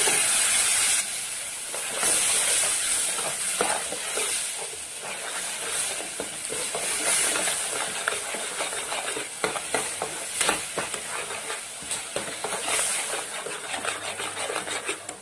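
Onion-spice masala in a hot kadai sizzling and hissing loudly for about the first second after water is added, with a burst of steam. It then keeps sizzling while a spoon stirs and scrapes the pan, with small clicks of the spoon against the pan.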